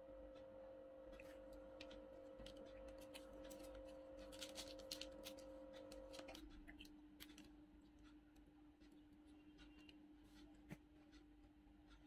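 Near silence: a faint steady hum, with soft clicks and crackles of crispy fried popcorn chicken being handled and dipped, busiest around the middle. One of the hum's tones stops about halfway.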